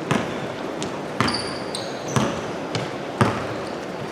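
A basketball being dribbled on the court floor, about one bounce a second, with a couple of brief sneaker squeaks.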